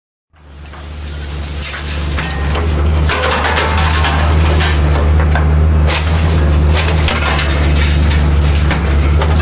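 Excavator's diesel engine running steadily with its low hum, while the EXT200 sorting attachment's steel jaws grab and drag scrap metal, which clanks and scrapes irregularly. The sound fades in over the first couple of seconds.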